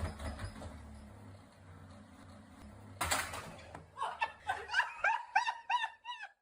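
A quiet low rumble, then a short sudden burst of noise about three seconds in, followed by a person laughing in quick repeated bursts that stop just before the end.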